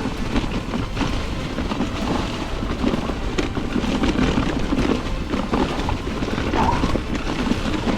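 Mountain bike riding down a dirt trail: a steady rumble of tyres over the ground and wind on the microphone, with scattered knocks and clicks from the bike over rocks and roots.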